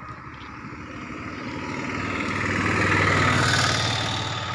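Auto-rickshaw passing close by: its small engine and tyre noise grow louder, peak about three seconds in, then fade.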